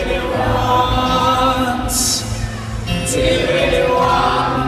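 Live acoustic guitar with held, wordless singing, many voices together as of a crowd singing along, amplified through a concert PA.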